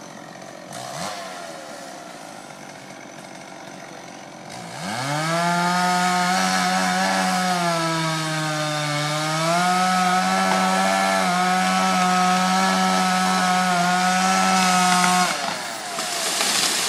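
Chainsaw revving up about four and a half seconds in and running at high speed, its pitch sagging for a second or so as it loads up in the cut, then recovering before it cuts off near the end. A rush of noise follows just after it stops.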